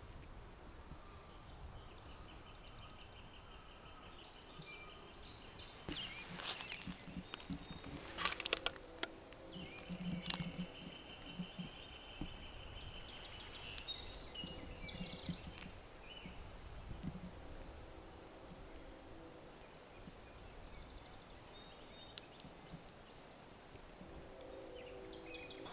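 Spring woodland with a songbird's long, dry, even trills repeating. They are broken by scattered rustles and sharp cracks of someone stepping through brush and dry debris.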